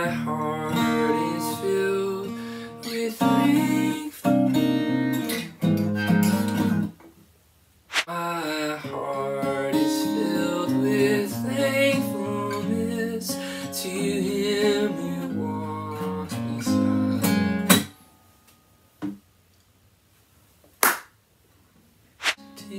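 A man sings to a strummed acoustic guitar. The playing breaks off about eighteen seconds in, and a few seconds of quiet follow with three sharp taps. The guitar starts again at the very end.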